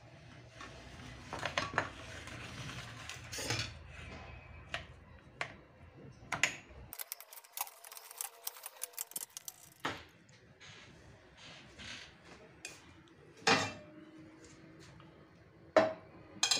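Metal utensils scraping and clinking against a plastic strainer and a glass bowl as boiled potatoes are pressed and mashed. A quick run of small clicks comes about halfway through, and a few louder knocks come near the end.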